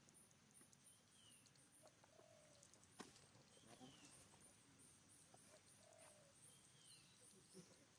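Faint outdoor ambience: insects pulsing high and even, about three times a second, and a bird repeating a short falling call every few seconds. A sharp click comes about three seconds in.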